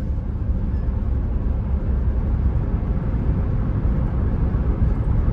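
Steady low road and engine rumble heard inside a moving car's cabin as it drives through a road tunnel.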